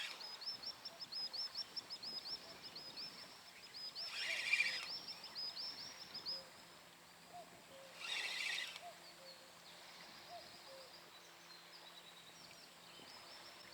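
A songbird singing in long runs of rapid, high chirps, with a pause in the middle, over faint outdoor ambience. Three short noisy rasps come about four seconds apart.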